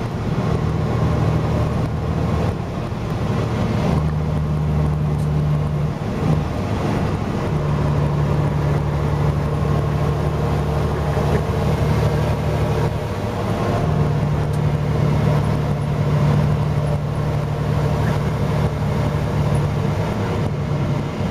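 Steady road and engine noise of a car moving at highway speed, heard from inside the cabin, with a low engine drone that fades in and out several times.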